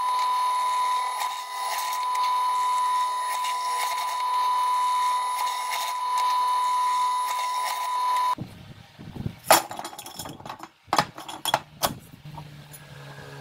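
Benchtop drill press motor running free with no load, a steady whine, which stops abruptly about eight seconds in. Then come several sharp clinks and knocks as aluminium square-tube pieces are set down on a wooden bench.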